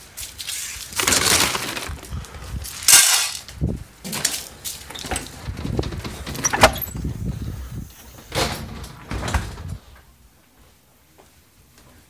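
Irregular rustling and scraping handling noises with sharp clicks and knocks, dying down about ten seconds in.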